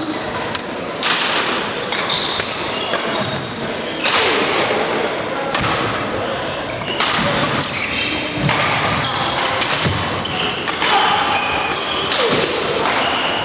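Badminton play in an echoing sports hall: sports shoes squeaking sharply on the court floor, with thumps and sharp racquet hits on the shuttlecock.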